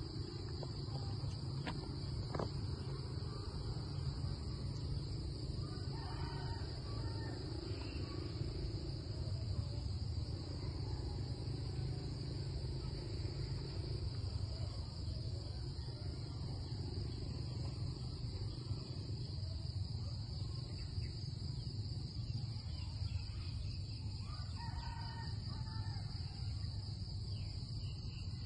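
Steady, high-pitched drone of an insect chorus, unbroken throughout, with a low rumble underneath.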